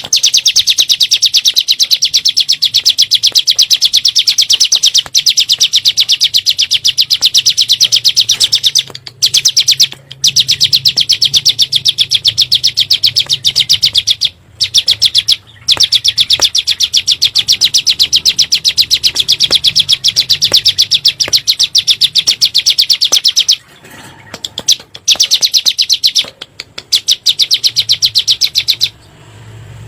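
Ciblek gunung, a prinia, singing a long rapid-fire trill of sharp, high notes in the "nembak" style. The trill breaks off with short pauses a few times and has a longer gap about three quarters of the way in.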